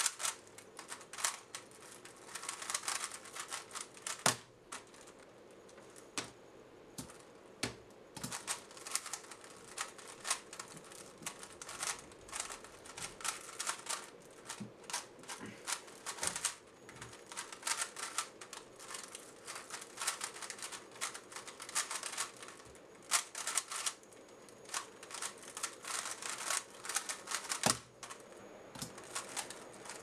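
A 3x3 speedcube being turned fast by hand: dense runs of plastic clicking and clacking as the layers turn, broken by short pauses. A few sharper single knocks stand out.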